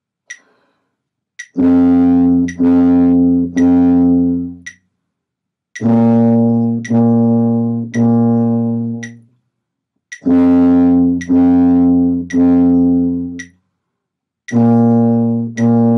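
Tuba playing a slow exercise of held, separated notes in groups of three, alternating between concert F and the B flat above it, each note starting on a metronome click. A metronome ticks about once a second throughout.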